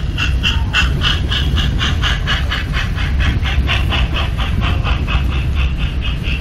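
Model steam locomotive's sound unit chuffing in a quick, even rhythm of about five hissing chuffs a second, over a low steady rumble of the running train.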